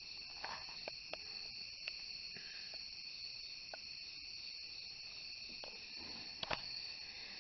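Faint steady high-pitched hiss with a few small scattered clicks, and a sharper click about six and a half seconds in.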